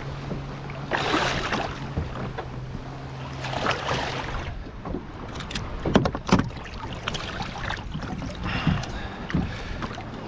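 River water sloshing and splashing as a large snook is held and swished alongside a plastic kayak to revive it, in several separate surges. A few sharp knocks about six seconds in, the loudest sounds.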